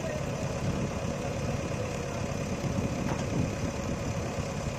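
Diesel engine of a JCB 3DX backhoe loader running steadily, with a constant hum over the low rumble.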